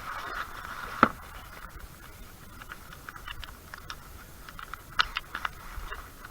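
Handling noise: scattered small clicks and taps, with one sharper knock about a second in.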